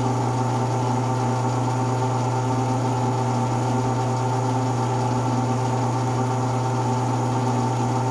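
Manrod MR 334 metal lathe running steadily: an even motor hum with a set of steady whining tones above it and no knocking or grinding. A new machine with sound spindle bearings, running smoothly.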